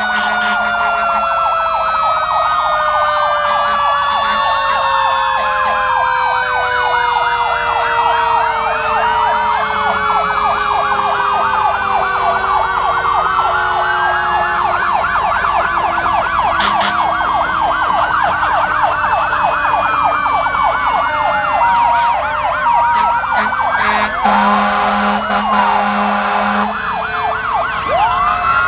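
Several fire truck sirens sounding at once, overlapping fast yelping warbles and slow wails. One siren winds slowly down in pitch across the whole stretch.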